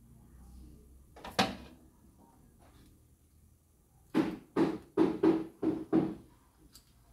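One sharp knock about a second and a half in, then a quick run of six knocks in about two seconds near the end.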